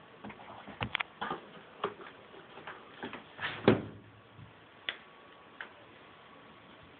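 Scattered light taps and clicks of a cord cat toy and cat paws knocking against a cardboard box, with one louder knock about three and a half seconds in.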